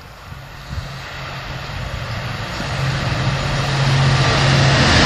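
Freightliner Class 66 diesel locomotive approaching at speed with a container freight train, its two-stroke V12 engine running with a steady low note. The engine and the rail noise grow steadily louder as it nears.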